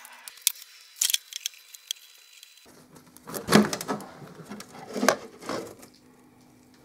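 Sharp metal clinks of a spanner working on the mill head's oil drain plug, followed by louder clattering and handling noises of metal parts twice.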